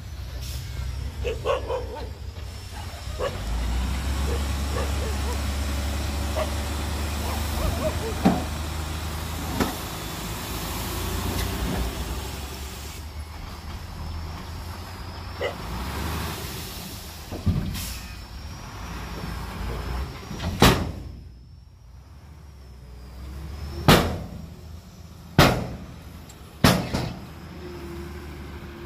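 Hyundai dump truck's diesel engine running and revving hard as the hydraulic hoist tips the bed and the soil load slides out. In the second half come several sharp bangs from the tipper body, the tailgate knocking as the emptied bed shakes and comes down, with the engine pulling away near the end.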